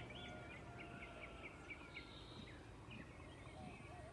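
Faint dawn chorus: several birds singing and calling at once, with quick overlapping whistled notes and trills over a steady low background hiss.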